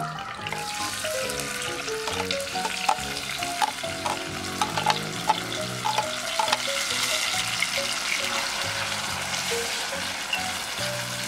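Diced tomatoes sizzling in hot oil in a pot, with a scatter of clicks in the first half as they go in, and stirring with wooden chopsticks near the end. Soft background music plays underneath.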